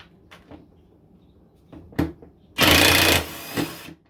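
Impact driver hammering in one loud burst of about half a second, a little over halfway in, loosening a bolt, with a quieter run-down after it. Light clicks and tool handling come before it.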